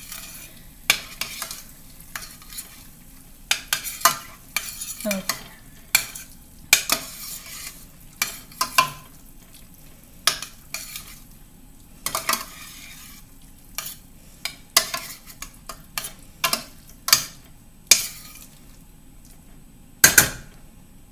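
Cooking utensil stirring ground Italian sausage in a pan on low heat: irregular clinks and scrapes against the pan over a faint steady sizzle, with one louder knock near the end.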